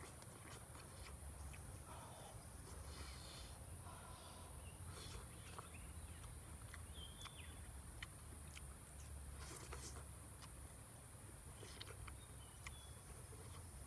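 Faint forest ambience: a steady high insect drone, with scattered small clicks and a couple of short bird chirps.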